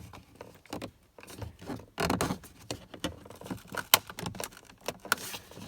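Plastic interior trim of a BMW E46 dashboard being handled and worked loose: irregular clicks, taps and scraping, with a louder scraping stretch about two seconds in and a sharp click about four seconds in.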